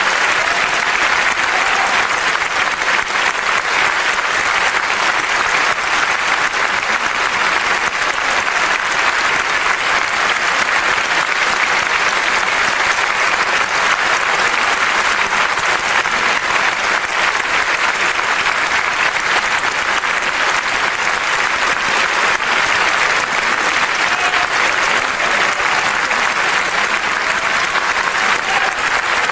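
A large theatre audience applauding, a dense, steady ovation that does not let up, given as the singer takes his bows.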